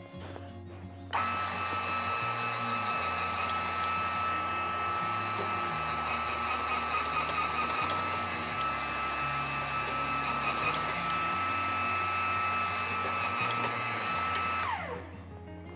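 Electric motor of a shop press running with a steady high whine while the ram presses flat steel stock into a curve over a bender die, then spinning down with a falling pitch near the end.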